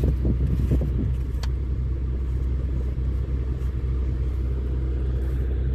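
Volkswagen Jetta's engine idling steadily, a constant low hum, with a single sharp click about a second and a half in.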